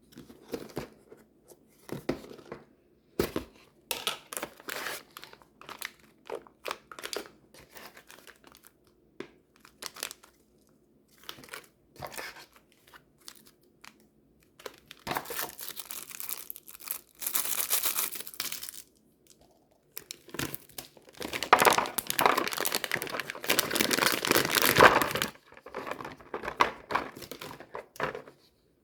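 Food packaging being crinkled and torn open, with scattered short rustles and clicks, then two longer, louder stretches of crinkling, one about halfway through and one about three quarters of the way through.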